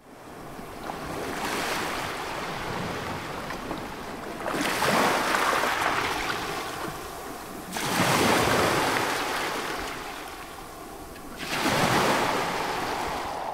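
Ocean surf: waves washing in, about four surges a few seconds apart, each swelling and then fading.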